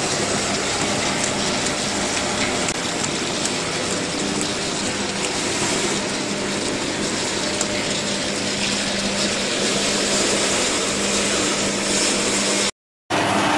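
Spring roll wrapper sheet machine running: a steady motor hum under an even mechanical noise, cutting out briefly near the end.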